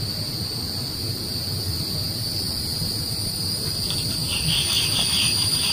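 Insects, crickets or cicadas, droning steadily at a single high pitch over a low, even rumble, with a brief pulsing trill joining about four seconds in.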